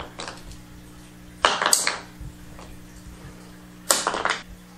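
Resin faux Seiryu stone knocked against a concrete floor: a short cluster of light clattering knocks about a second and a half in and another near the end, over a faint steady hum. The knocks sound odd for stone, the sign of a hollow fake rock rather than real Seiryu stone.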